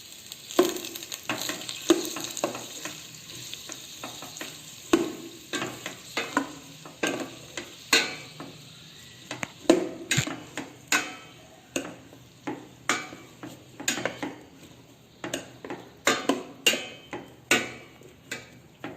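Chopped onions sizzling in hot oil in a pan while a spoon stirs them, scraping and knocking against the pan about once or twice a second. The onions are being fried until soft.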